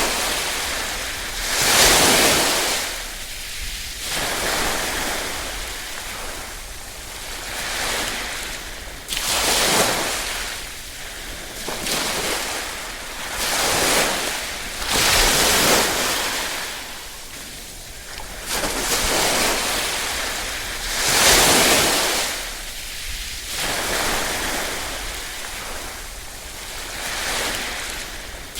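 Small waves lapping and breaking on a shore, a surge every two to four seconds that swells and then drains away.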